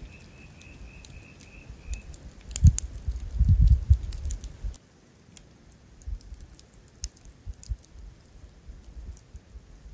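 Campfire crackling and popping in scattered sharp ticks. Low bumps cluster between about two and a half and five seconds in, and they are the loudest sound. A faint pulsing high trill runs for the first two seconds.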